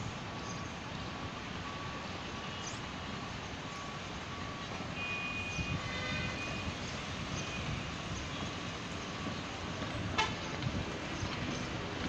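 Steady running noise of a moving vehicle heard from inside, with a faint short beep repeating about every half second. A brief higher-pitched tone sounds around the middle, and a sharp click comes near the end.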